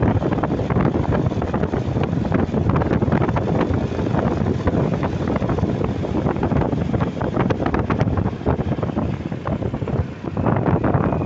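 Wind buffeting the microphone over the noise of a moving vehicle on the road, a rough rumbling roar with no horn sounding.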